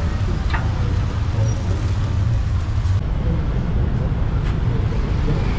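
Steady low rumble of street traffic with general street noise.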